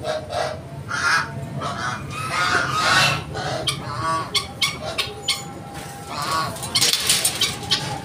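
A flock of domestic geese honking again and again, with calls overlapping. Sharp clicks run through the second half, and there is a short rush of noise about seven seconds in.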